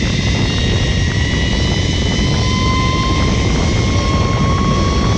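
Zip-line trolley pulleys whining along the steel cable at high speed, the pitch rising slowly as the rider speeds up, under heavy wind rumble on the microphone.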